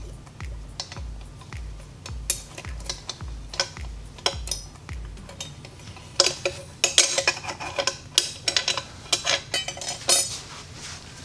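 Sharp metallic clicks and scrapes as a large steel circlip is worked by hand onto a turbocharger to hold its housing on. The clicking grows busier and louder about halfway through. A soft music beat runs underneath and stops about five seconds in.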